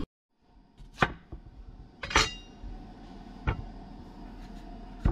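Four separate sharp knocks of kitchen gear on a wooden cutting board, the second with a brief metallic ring: a metal box grater being handled and set down on the board.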